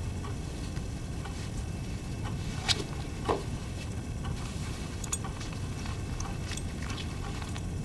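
A man undressing: two soft knocks about three seconds in, then light metallic clinks of a belt buckle being undone. A steady low hum runs underneath.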